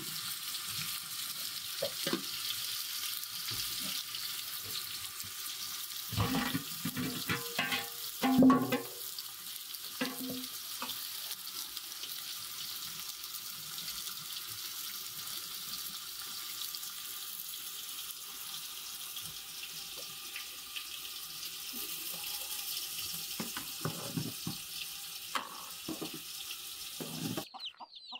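Steady hiss of cooking on a gas stove, from a pot heating on the burner, with clinks and knocks of a metal ladle against the pots, loudest between about six and nine seconds in. The hiss cuts off suddenly just before the end.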